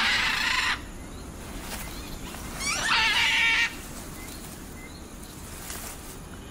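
Scarlet macaws calling: two loud, harsh squawks, each about a second long, the second about three seconds in.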